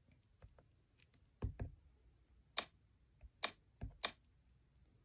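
Fingertips tapping on an iPad's glass touchscreen: a few faint light taps, then sharp clicks and soft thumps about one and a half to four seconds in.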